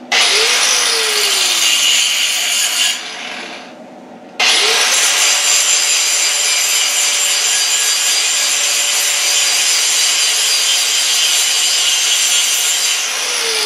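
Angle grinder grinding metal. It spins up and grinds for about three seconds and stops, then starts again about four seconds in and grinds steadily, winding down near the end.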